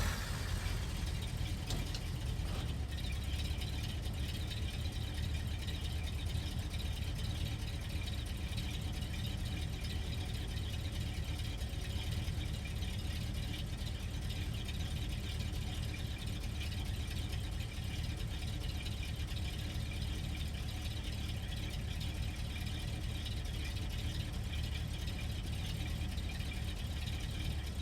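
Car engine idling steadily, a low even rumble that holds the same level throughout.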